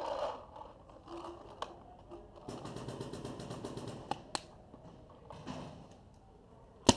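Paintballs rattling as they pour from a paint pod into a paintball marker's hopper, with a few sharp clicks in between. Right at the end, a rapid burst of paintball marker shots starts, the loudest sound here.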